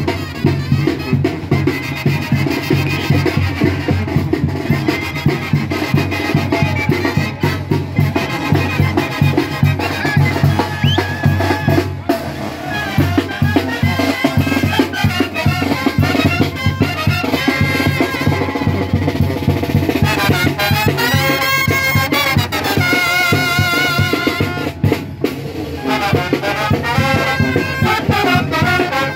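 Brass band music: trumpets and trombones playing over a steady drum beat.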